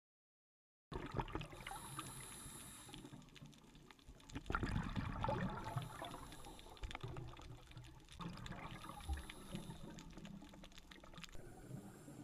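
Scuba diver breathing through a regulator underwater, heard through a camera housing: a hissing inhale about every three seconds with bubbling exhalations between them. It starts after about a second of silence.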